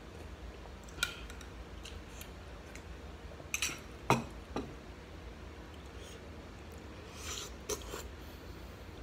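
Tableware clatter while eating: a ceramic bowl with a spoon in it knocked and set down on a wooden table a little before halfway, the loudest sound, with a few lighter clicks of a spoon and dish before and after.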